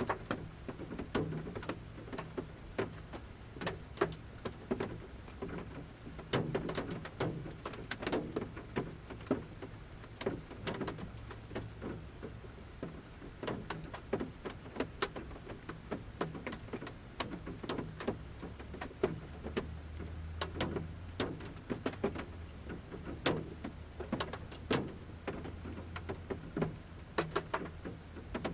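Large raindrops falling from the forest canopy tapping at irregular intervals on the roof of a camper van, heard from inside the van: a steady patter of sharp, uneven taps, with a low steady rumble underneath that grows a little stronger about two-thirds of the way through.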